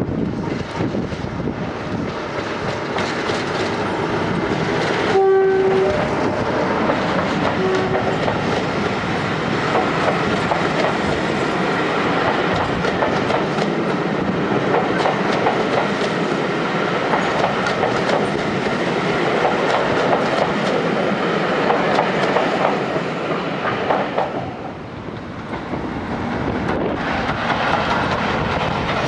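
Diesel locomotive passing close by with its engine working and coaches rumbling along the rails, sounding its horn in a short blast about five seconds in and again more faintly a couple of seconds later. Near the end the sound gives way to wind buffeting the microphone.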